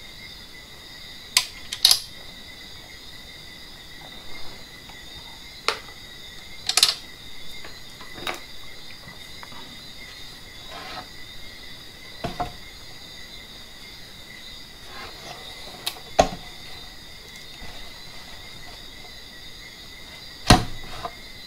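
Scattered knocks and clacks as the opened inverter's metal case is handled and turned around on the bench, about eight in all, the loudest near the end. A steady high-pitched whine of several fixed tones runs underneath.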